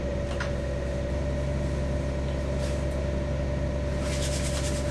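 A trawler yacht's single inboard diesel engine running steadily at cruising revs, a constant low drone with a steady mid-pitched tone over it.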